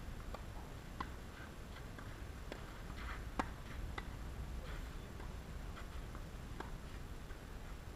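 Tennis rally: racquets striking the ball and the ball bouncing on the court, heard as a string of faint sharp pops. The loudest pop comes about three and a half seconds in.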